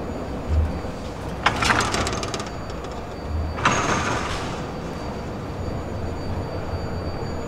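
Metro station ticket barrier gates sliding open and shut: two short hissing bursts about two seconds apart, over a steady low rumble.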